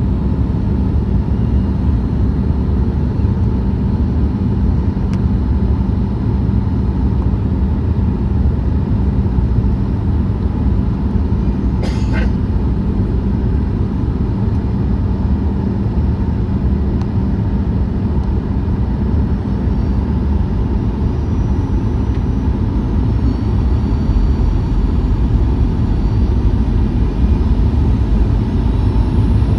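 Cabin noise inside a Boeing 737-900ER: a steady, loud rumble of airflow and the CFM56 engines, with a single brief click about twelve seconds in.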